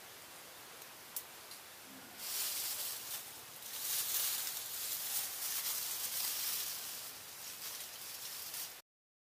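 Leafy green branches rustling as they are handled and laid over a bamboo trap: a dense, crisp rustle that starts about two seconds in and cuts off abruptly near the end.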